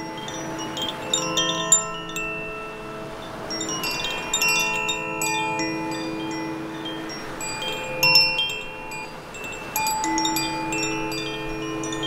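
Koshi "Air" wind chime ringing: clusters of bright tuned notes struck every few seconds, each note ringing on for several seconds. A steady wash of waves on rocks runs underneath.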